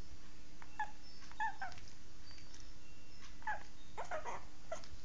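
Shih Tzu dog whimpering: a series of short, high-pitched cries, some coming in quick pairs.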